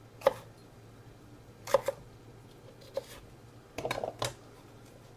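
Scattered sharp taps and knocks of kitchen utensils against a cutting board or pan: single clicks, a quick double knock, and a short rattling cluster near the end.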